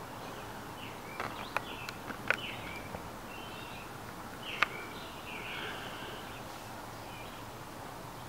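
Faint bird chirps over a low steady hiss, with a few sharp clicks scattered among them, the loudest about four and a half seconds in.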